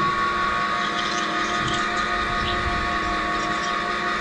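Irrigation pivot tower's drive motor running steadily with a constant whine, driving a failed wheel gearbox that grinds while the tire sits stuck in a deep muddy rut.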